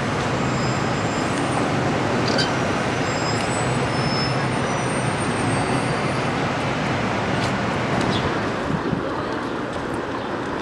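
Steady road traffic noise, a continuous wash of passing vehicles.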